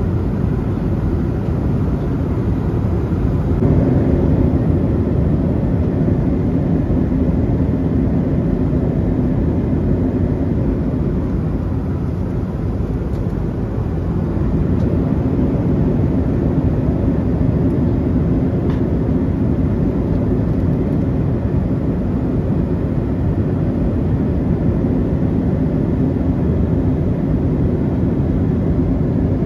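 Steady cabin noise inside a Boeing 737-700 in cruise flight: the even low rush of its CFM56-7B turbofan engines and the airflow over the fuselage, with a faint steady hum under it.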